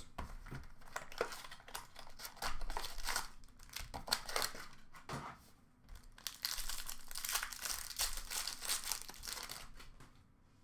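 Hockey card packaging being torn open and crinkled by hand: irregular crackling and tearing of wrapper, dying away shortly before the end.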